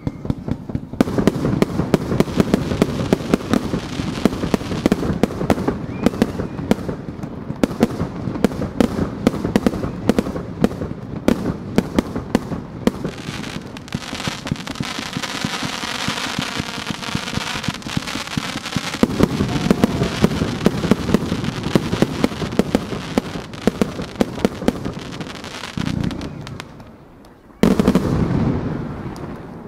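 Fireworks barrage: shells launched and bursting in rapid succession, many sharp bangs a second, with a stretch of hissing crackle in the middle. Near the end it eases briefly before a loud new burst.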